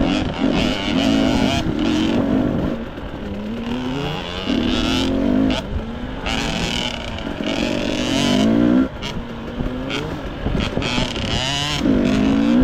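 Husqvarna TC65 two-stroke dirt bike engine revving in repeated bursts, its pitch rising and dropping back several times as it is ridden over rough, rocky ground.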